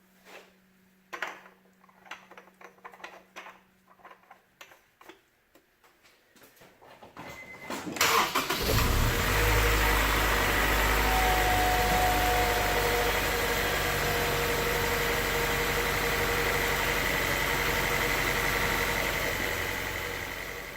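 A series of light clicks and taps, then about eight seconds in the Honda S2000's F22C1 four-cylinder engine starts and settles into a steady idle. This is the first start after fresh oil is put in, run to check for leaks and the oil level.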